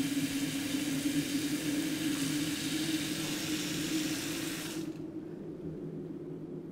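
Running water rushing over a steady low hum; the rushing cuts off suddenly about five seconds in, and the hum fades away.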